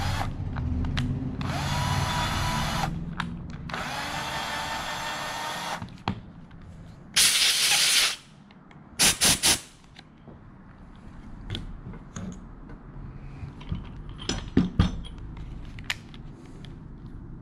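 Cordless drill running in three short bursts, with brief pauses between them, as it chases paint-clogged bolt threads on a suspension strut. Then a compressed-air blow gun hisses for about a second and gives three quick blasts, followed by a few light clicks.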